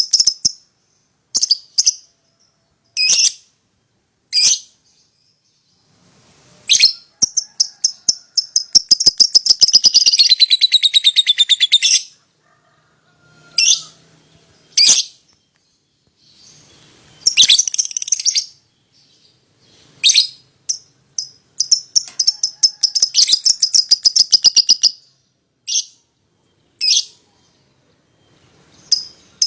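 Pair of young lovebirds calling: short, sharp, high chirps, with long, very rapid chattering trills (the prized long 'ngekek') running for several seconds about a third of the way in and again in the last third.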